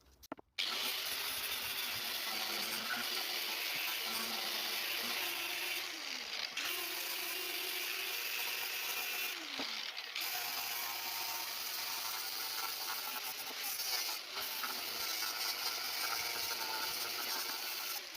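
A small motor-driven tool running steadily, starting suddenly just after the start and stopping near the end. Its pitch drops and recovers twice along the way.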